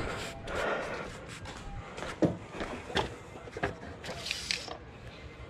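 Footsteps on brick pavers, a few evenly spaced steps at walking pace, among light clicks and knocks of handling, with a brief rustle near the end.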